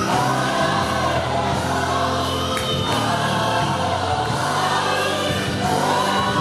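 Gospel choir music: a choir singing over held chords and a bass line, accompanying a praise dance.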